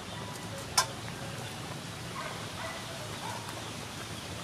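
Pot of soup boiling on a wood-fired stove, a steady hiss and bubbling, with a single sharp knock about a second in.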